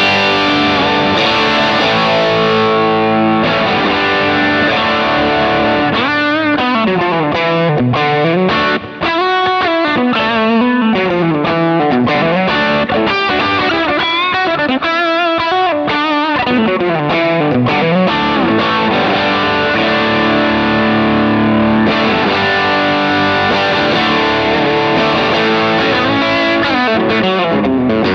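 Distorted electric guitar played through a Kemper Profiler: held chords, then lead lines with bent, wavering notes. The very top end drops away about three seconds in and comes back after about 22 seconds, as the 10 kHz band of the profile's graphic EQ is turned.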